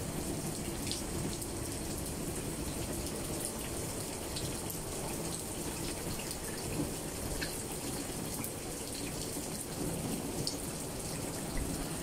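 Steady rain falling on leafy branches, an even hiss with scattered faint ticks of individual drops.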